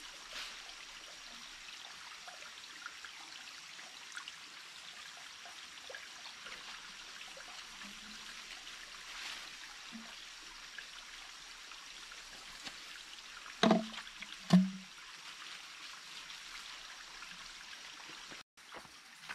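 Small forest stream trickling and gurgling steadily. Two brief, louder sounds about a second apart come a little past the middle.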